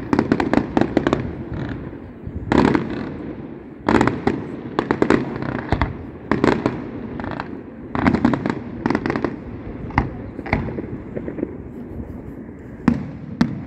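Aerial fireworks shells bursting, a rapid series of bangs and crackling reports coming in clusters every one to two seconds.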